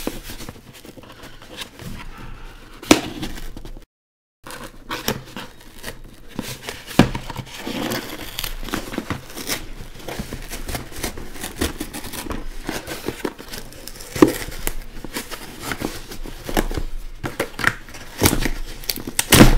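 Hands working open a package: scraping, tearing and crinkling of the packaging with scattered sharp knocks and clicks. The sound cuts out completely for about half a second near four seconds in.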